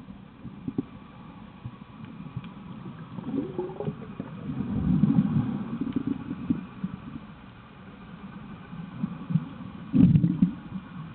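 Underwater rumbling and gurgling of water and bubbles heard through an underwater camera housing, swelling about four seconds in and again near the end.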